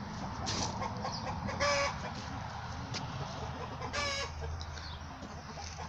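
Free-ranging chickens clucking, with two short, loud squawks about a second and a half and four seconds in.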